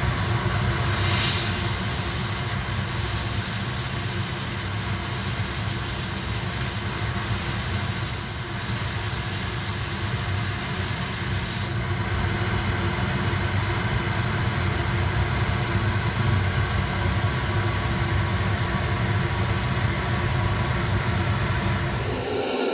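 Micro-abrasive blast nozzle hissing steadily as a jet of compressed air and abrasive cuts channels into a seal face, over a steady low machine hum. The high hiss stops about 12 seconds in, leaving the hum and a softer rushing noise.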